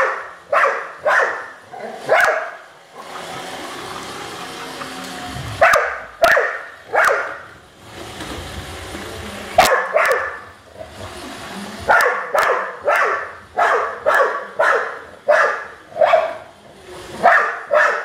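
Dog barking in bouts of sharp barks, a few at a time at first, then a quick unbroken string over the last six seconds. Between the bouts a Roomba robot vacuum's steady running hum can be heard.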